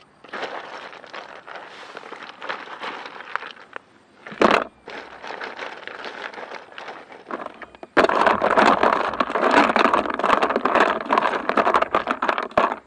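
Ice cubes clinking and rattling against each other and a metal pot of water as a hand stirs through them, with a dense crackle of small clicks. One sharp knock comes about four and a half seconds in, and the rattling turns louder and busier about two-thirds of the way through.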